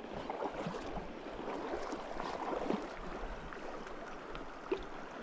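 Shallow river water flowing with a steady rushing gurgle, with a few small splashes.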